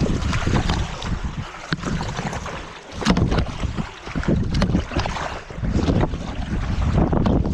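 Wind buffeting the microphone with kayak paddles splashing and knocking, several sharp clacks among the strokes.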